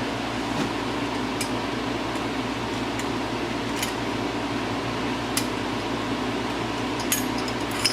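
Steady hum of a fan in the workshop, with a few faint light clicks every second or two from hand work on a Honda engine's cylinder head as the push rods are freed.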